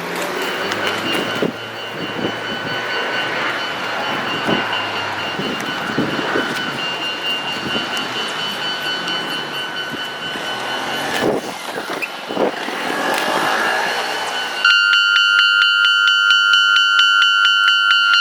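Road traffic passing over a Japanese railway level crossing, sped up to double speed. About three-quarters of the way through, the crossing's warning bell suddenly starts ringing, a loud, fast, evenly repeating ding, signalling that a train is approaching and the barriers are about to come down.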